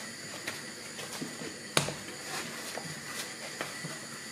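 Hands kneading a ball of cooked rissol dough on a granite countertop: soft dull pats and presses at an irregular pace, with one sharper knock near the middle, over a faint steady hiss.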